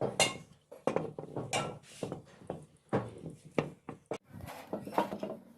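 Irregular metallic knocks and clinks of metal parts being struck and handled, a few per second, some with a short ring.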